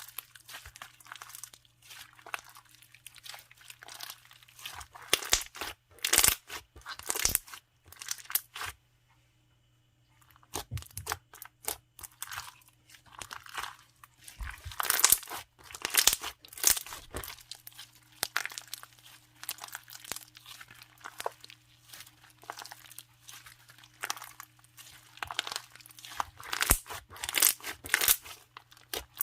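Foam clear slime, a clear jelly base packed with soft foam balls, being squeezed and stretched by hand, giving dense irregular crunchy crackles and pops. The crackling stops briefly about nine seconds in, then resumes.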